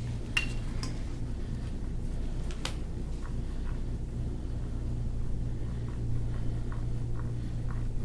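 Faint short scraping strokes of a gua sha tool along the skin of a forearm, about two a second in the second half, over a steady low hum, with a few sharp clicks in the first three seconds.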